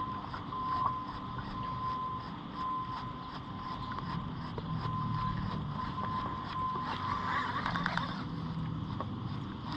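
A small motor running with a steady high whine and a low hum beneath it, with a brief rattling burst about seven seconds in.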